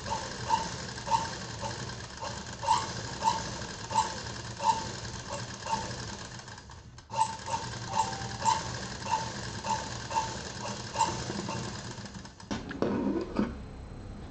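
Black domestic straight-stitch sewing machine stitching slowly through cotton fabric, a regular clicking knock about twice a second. It pauses briefly about halfway through, runs again, and stops a few seconds before the end, followed by a few handling noises.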